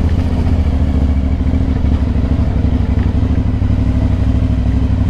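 Aprilia Shiver 900's V-twin engine running at a steady, unchanging pitch while the motorcycle cruises.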